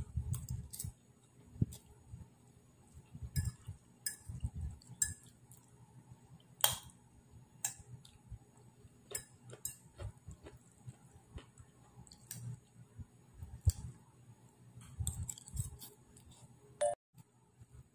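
Eating pancit noodles with a fork: soft chewing and mouth sounds, broken by irregular sharp clicks and clinks of the fork against the plate.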